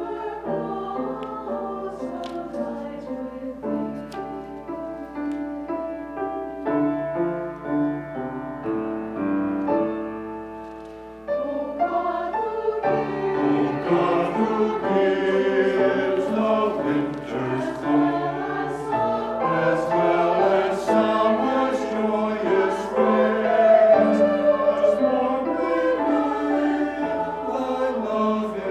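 Mixed church choir singing an anthem in held, sustained notes; softer at first, then the singing swells noticeably louder and fuller about eleven seconds in.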